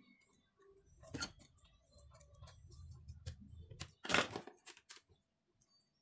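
Hands handling a drill's plastic trigger switch and its wires: a few sharp clicks and knocks, the loudest about four seconds in, over a faint low rumble.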